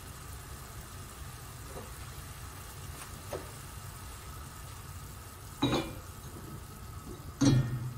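Marinated beef strips frying in oil in a nonstick pan, a faint steady sizzle over a low hum. Twice near the end, louder short bursts of scraping and sizzle as food is scraped from a bowl into the hot pan, the second the loudest.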